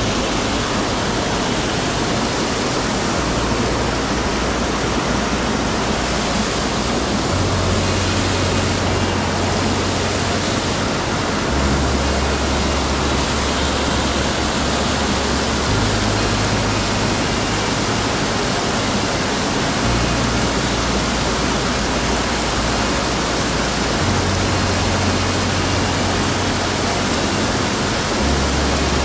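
Mountain stream rushing steadily over rocks, a constant loud wash of water.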